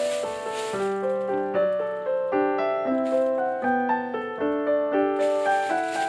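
Background piano music, a steady flow of single notes, with a faint rustle at the start and again near the end.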